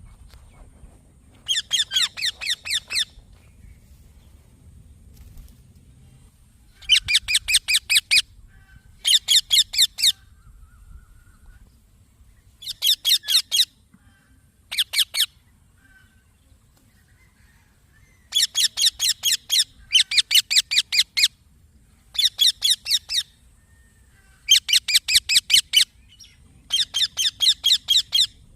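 Young Indian ringneck parakeet calling in short bouts of rapid, shrill repeated chirps, each bout five to seven quick falling notes lasting about a second, about ten bouts separated by pauses of one to four seconds.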